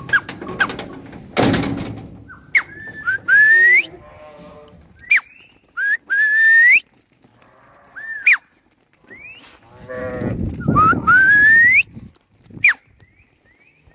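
Akkaraman sheep bleating, while a person gives a string of loud rising whistles to call the flock. The strongest whistles come about three and a half, six and a half and eleven and a half seconds in.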